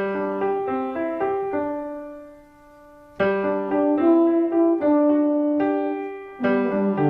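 Piano music: a melody over chords that fades away about two seconds in, then starts a new phrase about three seconds in and another near the end.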